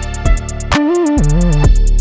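Electronic background music: a deep bass and a kick drum under quick hi-hat ticks, with a synth line stepping up and down in pitch about halfway through.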